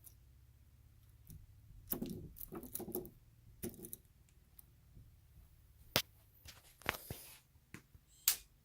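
Small smart lock being handled: scattered light rattles and rustles, with a few sharp clicks in the last few seconds.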